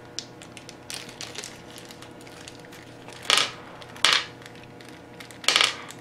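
Small plastic zip bag of screws being handled and opened to take the screws out: light ticks and rustles, then three short, sharp crinkles of plastic, two close together about halfway through and one near the end.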